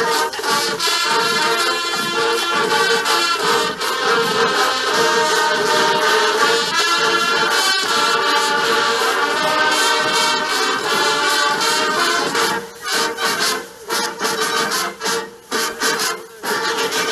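High school marching band playing: brass and drums together in a full, loud passage. About two-thirds of the way through, the music breaks into a series of short, punched hits with brief gaps between them.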